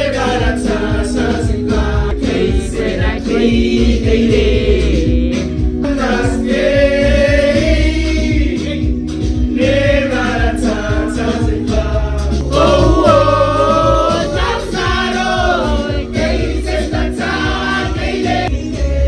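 Music with several voices singing together, choir-style, over a steady low accompaniment, with long held sung notes.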